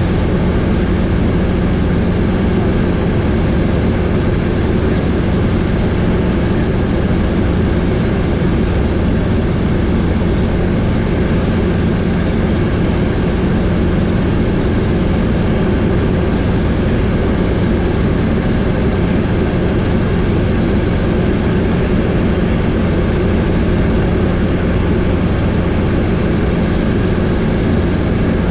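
Helicopter in flight: a loud, steady drone of engine and rotor, unchanging throughout.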